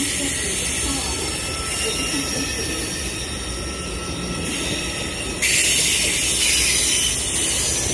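Train moving through a station on steel rails: a steady high hiss over a low rumble, stepping up louder about five and a half seconds in.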